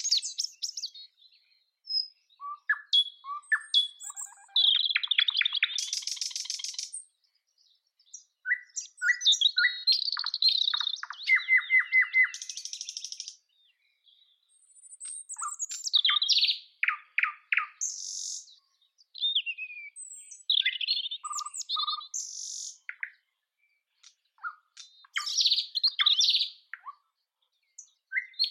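Nightingale singing: loud, varied phrases of fast repeated notes, trills and whistles, broken by short pauses between phrases.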